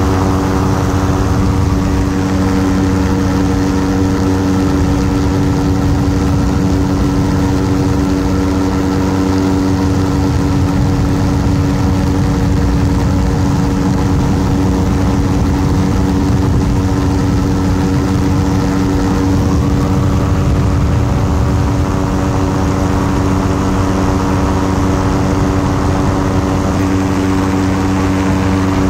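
Ultralight aircraft's engine and propeller running at a steady, unchanging speed.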